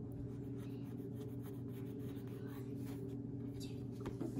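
Pencil scratching on paper in short strokes while drawing lines, faint over a steady low hum.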